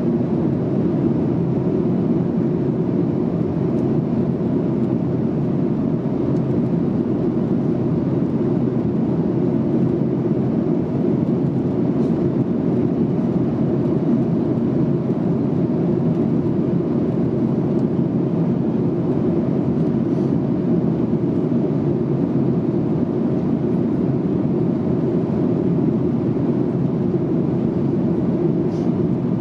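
Steady cabin noise inside a Boeing 737-800 in flight: the low, even drone of its CFM56-7B turbofan engines and the rush of air past the fuselage, heard from a seat over the wing.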